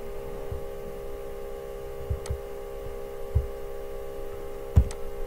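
Steady electrical hum, with a few dull low thumps and sharp computer-mouse clicks about two seconds in and near the end.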